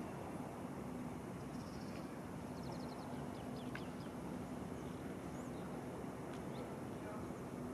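Outdoor ambience: a few small birds chirping briefly, mostly in the first half, over a steady low hum.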